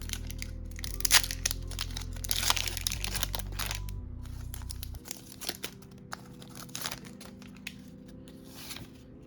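Foil booster pack wrapper crinkling and tearing as it is opened, a run of crackling rustles with the loudest crinkle about a second in, over background music.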